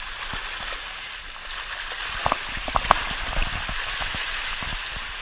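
Shallow seawater alive with a dense school of bunker (menhaden) flicking at the surface: a steady rain-like patter, with a few sharper splashes about two to three seconds in.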